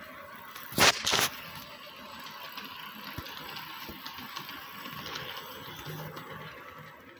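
Model train running on the layout track, a steady small-motor whirr with faint wheel clicking. Two loud knocks come close together about a second in.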